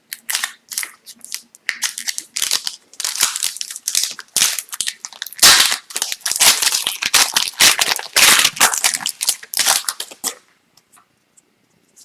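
Hockey card packaging being torn open and crinkled by hand: a quick run of ripping and crackling of wrapper and foil packs that stops suddenly about ten seconds in.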